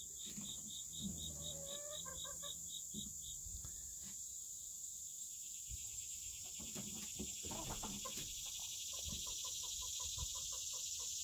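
Chickens clucking quietly, with short calls and soft runs of clucks now and then, over a steady high chirring of insects.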